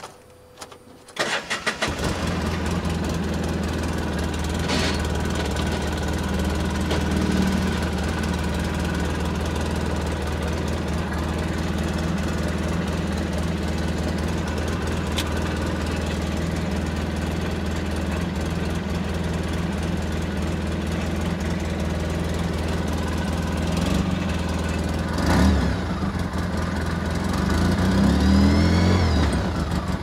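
2008 Polaris RZR 800's twin-cylinder engine cranking and catching about a second or two in, then idling steadily. Near the end it is revved briefly, twice, turning the raised front wheels in all-wheel drive.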